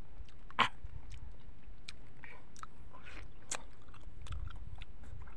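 A man biting into and chewing a peeled mango, close to the microphone: a run of short mouth clicks and chewing sounds, with one sharper click about half a second in.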